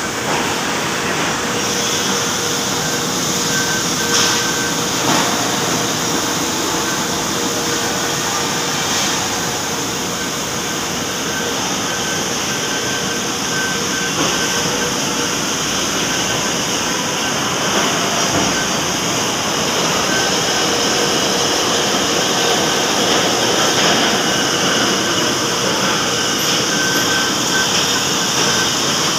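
Large old engine lathe running with its heavy chuck spinning while a boring bar cuts inside the workpiece. It makes a steady machine noise with a constant hum and a fainter higher whine, and a few light clicks along the way.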